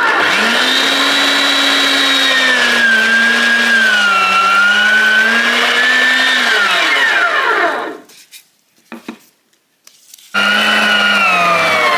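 Electric meat grinder running as paratha and banana are fed through it, its motor whine wavering in pitch under the changing load. About seven seconds in it is switched off and its pitch falls as it winds down. After a couple of seconds of quiet with a few small knocks, it starts up again.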